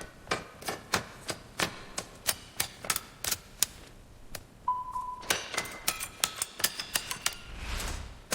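A regular run of sharp mechanical clicks, about three a second, then a short steady beep about halfway through. Quicker clicks follow, and a brief low hiss near the end.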